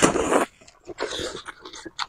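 Noodles in spicy soup slurped into the mouth: one loud, wet slurp about half a second long at the start, then softer chewing and slurping noises about a second in.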